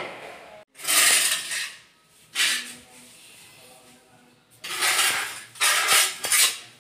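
Steel hand trowel scraping across tile and cement mortar, in several short strokes with pauses between, the last ones coming close together.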